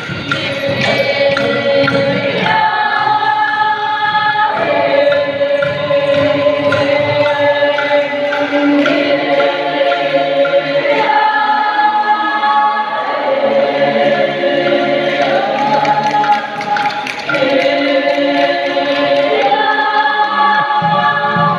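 A group of voices chanting a Dusun gonding, unaccompanied, holding long notes together and moving to a new pitch every few seconds.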